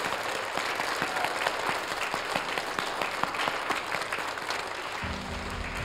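Audience applauding: many hands clapping together in a steady patter.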